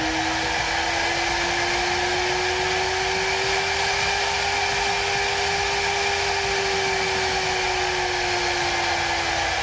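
Huanyang VFD-driven CNC spindle motor running at high speed: a steady whine over a hiss. The whine rises slowly in pitch over the first half and falls again through the second half as the drive changes the spindle speed.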